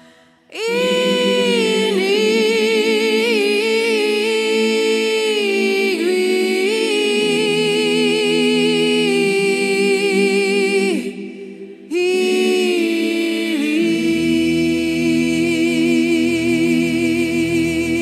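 Background music: a cappella choral singing in long held notes with vibrato, in two phrases with a short break about eleven seconds in, and lower voices or a low tone coming in soon after the second phrase starts.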